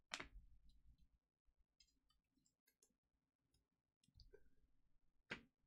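Near silence broken by a few faint clicks and ticks from trading cards being handled, with one sharper click at the start and another near the end.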